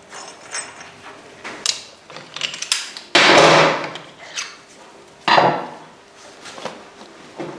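Workshop handling noises: scattered knocks and clatters of tools and metal parts being worked and set down, with two louder rushing clatters about three and five seconds in.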